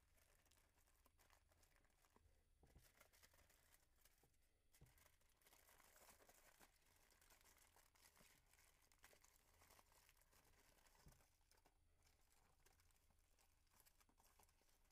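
Aluminum foil crinkling faintly as it is folded and pinched by hand into a small boat-shaped pan, with scattered soft crackles.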